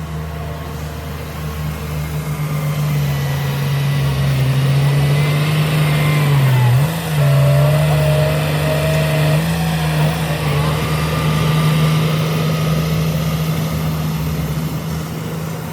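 Heavy diesel engine of earthmoving machinery running under load, growing louder over the first few seconds. The pitch dips briefly about seven seconds in, then it runs steadily again.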